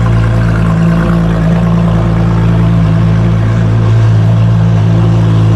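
Ferrari LaFerrari's naturally aspirated V12 idling steadily and loudly in the minute after a cold start.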